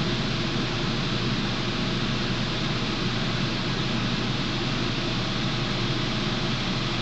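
Steady, even hiss of background noise with a low hum underneath, unchanging throughout.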